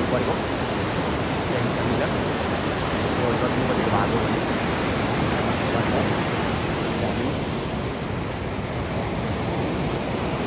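Steady rushing of a fast mountain river, an even roar of water with no rhythm or breaks.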